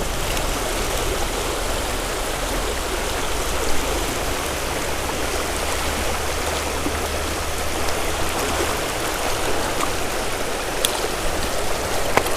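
Creek water flowing, a steady, even rushing noise from a stream running a little high after recent rain. A couple of faint clicks near the end.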